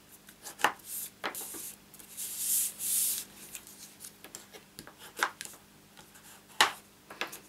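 Cardstock being folded along its score lines and creased with a bone folder: a papery rubbing swish about two to three seconds in, and a few sharp taps and snaps of the card.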